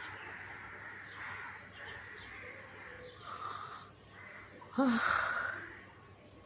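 A woman yawning: soft breathy air sounds, then about five seconds in a loud yawn with voice in it that fades over about a second.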